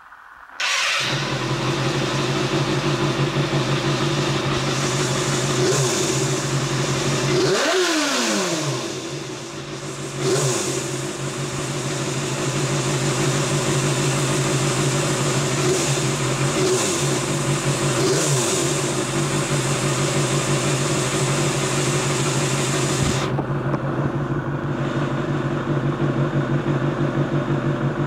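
Kawasaki Balius 250 cc inline-four engine catching about a second in and then idling steadily, with the revs dipping and recovering once and rising briefly a few times. It runs smoothly after a carburettor overhaul and a starter-motor service cured its hard starting.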